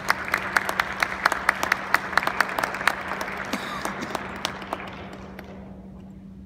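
Audience applauding, the clapping thinning out and fading away about five seconds in.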